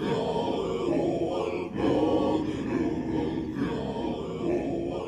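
A group of voices chanting together in long phrases, with a brief pause a little under two seconds in.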